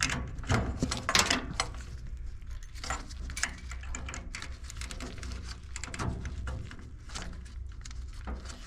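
Handling noise of hoses and wire connectors being pushed back onto a furnace pressure switch: irregular small clicks, taps and rustles over a steady low hum.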